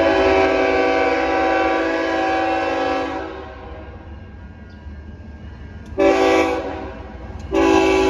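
BNSF GE ES44C4 locomotive's K5HL five-chime air horn sounding for a grade crossing: one long blast, a short blast about six seconds in, and another long blast starting near the end, over a low rumble.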